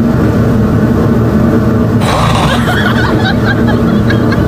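A man imitating snoring, with a rasping snore-breath about two seconds in over a steady low rumble, the breaths coming about three seconds apart.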